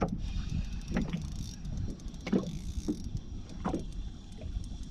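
Water slapping against the hull of a small inflatable boat in short strokes about every second, over a steady low rumble, with the whir of a spinning reel being cranked as a hooked horse mackerel is reeled in.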